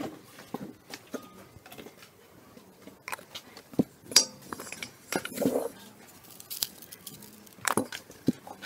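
Scattered clinks and light knocks of a small glass spice jar and its lid being handled while meat in a plastic bowl is seasoned. The sharpest clink comes a little past four seconds.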